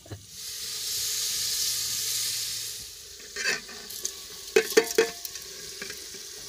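Food sizzling in hot oil, loud for about two and a half seconds and then dying down to a lower sizzle. A few sharp knocks come around the middle.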